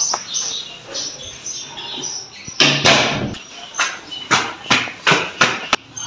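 A door being opened, then quick footsteps climbing marble stairs, about two to three steps a second, starting a few seconds in.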